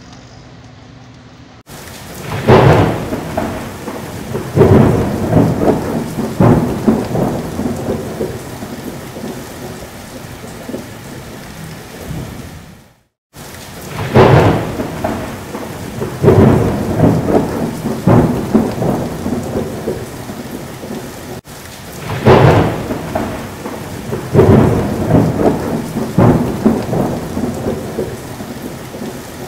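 Heavy rain with loud thunder rumbles about every two seconds. The same stretch of thunderstorm sound starts over three times with abrupt cuts, one of them a brief dropout about halfway in, as a looped thunderstorm sound effect does.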